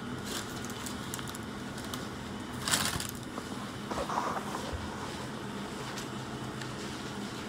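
Plastic bread-bag packaging rustling briefly about three seconds in, with a softer rustle a second later, over a steady low hum of background machinery.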